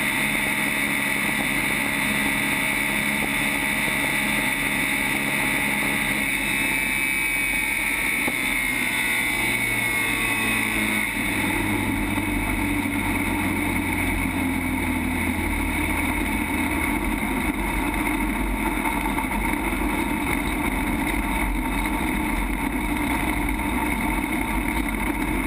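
Race car engine and wind noise heard from inside the cabin of a stock-car-bodied land-speed car on a run, loud and steady, with the engine note falling away between about six and eleven seconds in.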